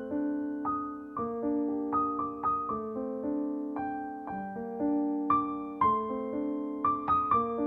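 Background piano music: gentle single notes and chords, each struck and left to fade, at an unhurried pace.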